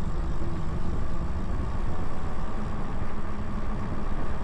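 Wind rumbling on the Insta360 X4's built-in microphone, fitted with furry wind muffs, as the e-bike rides at speed: a loud, steady low rumble with a faint steady hum underneath.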